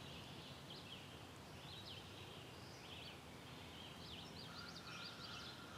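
Faint songbirds chirping, many short quick notes that come thickest about four seconds in, over a low steady background.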